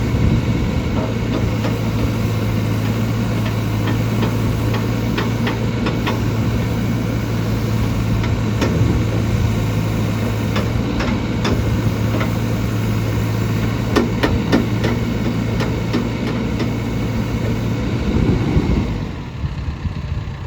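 John Deere 310SK backhoe loader's diesel engine running with a steady drone, broken by sharp knocks and clanks every few seconds while the machine works. Near the end the engine drone drops away.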